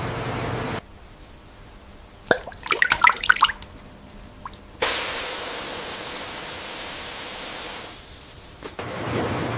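Water dripping and splashing in a quick cluster of drops, between stretches of steady rushing hiss that start and stop abruptly.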